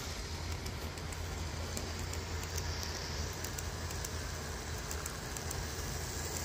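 Model train running on a layout track: a steady low hum and rumble from the motor and wheels, with light clicks scattered through it.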